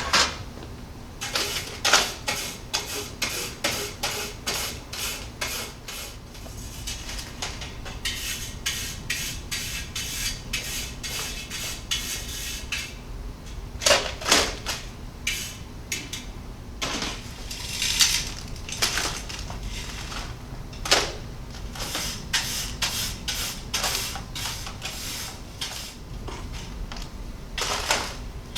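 Burned asphalt-mix aggregate being scraped off metal ignition-furnace sample baskets into a pan: a long run of short metallic scraping strokes, several sharp knocks against metal among them.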